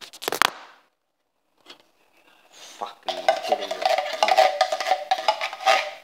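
A metal spoon clinking and scraping against a ceramic bowl of baked beans, with a steady ringing scrape under the clinks. A few sharp knocks come at the start, then about two seconds of silence before the clinking begins.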